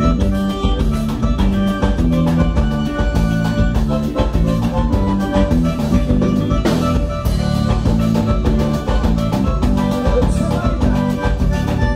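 Dance band playing an instrumental passage: a drum kit keeps a steady beat under a repeating bass line and held melody notes, with no singing.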